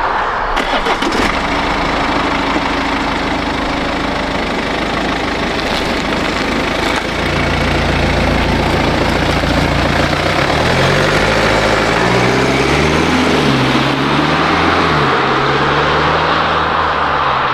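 BMW 320d GT's four-cylinder turbodiesel engine running, then pulling away about seven seconds in: the engine note deepens, and its pitch rises and drops several times as the automatic gearbox shifts up under acceleration. A steady rushing noise runs underneath.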